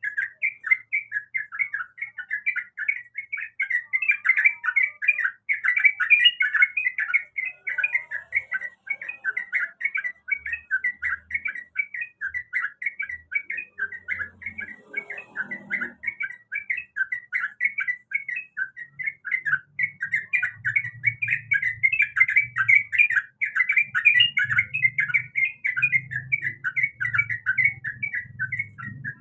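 Yellow-vented bulbul (trucukan) chattering in a fast, unbroken run of short chirps.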